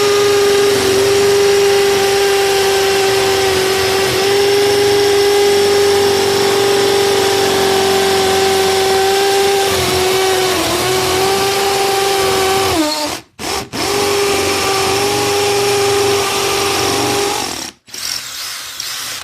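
DeWalt DCD776 18-volt cordless drill on its hammer setting, drilling an 8mm hole into brick: a loud, steady motor whine over the rattle of the hammer action. The pitch dips briefly twice; the drill stops for about half a second about two-thirds through, then runs again for about four seconds and stops near the end.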